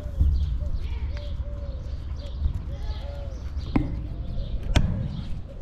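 Wolf whimpering in a run of short, high rise-and-fall whines, a few a second. Two sharp knocks come in the second half.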